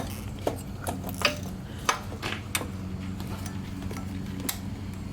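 Irregular sharp metal clinks and taps of a socket wrench and its extensions working at the carburettor intake manifold bolts, over a steady low hum.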